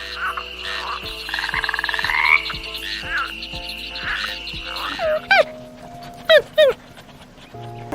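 Frogs croaking in pulsed calls over a steady high trill. About five seconds in this gives way to short, high calls that drop steeply in pitch, a few at a time.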